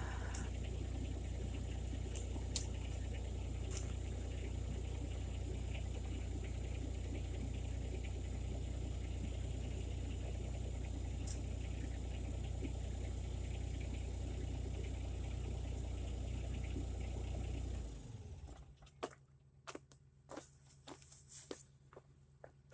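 Loader engine idling steadily, then shut off about eighteen seconds in, followed by a few faint clicks.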